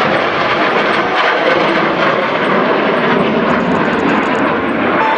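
Military aircraft engines, a formation of a refuelling tanker with F/A-18 Hornets and F-35s, flying past in a loud steady rush.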